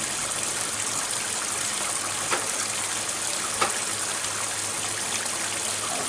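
Water pouring from a pipe into a pond, splashing steadily on the surface. Two brief sharp clicks sound over it, a little over two seconds in and again about a second later.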